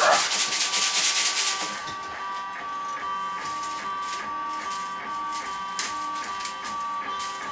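Lulzbot AO-101 3D printer running mid-print: for about the first two seconds a loud rattling clatter as the printer frame is handled and moved, then a steady whine with fine ticking as it carries on printing.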